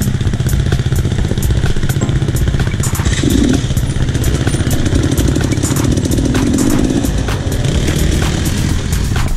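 Enduro dirt-bike engine running on a trail ride, with many short knocks and clatter. The engine note thickens for a few seconds in the middle.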